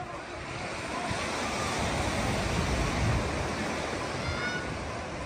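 Sea surf breaking and washing on a beach: a steady rush that swells about a second in and eases toward the end.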